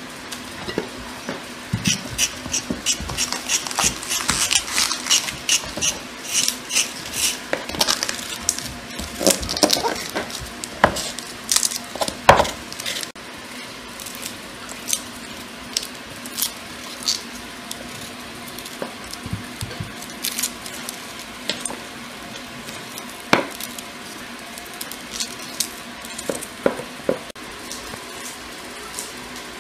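Kitchen knives scraping and peeling vegetables over a wooden cutting board, with scattered clicks and knocks of blades and peelings on the board. The strokes come quick and close together in the first half, then thin out to occasional taps over a faint steady hum.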